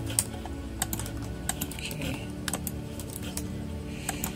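Computer keyboard keys and mouse buttons clicking irregularly, a few clicks a second, as the G key is tapped repeatedly.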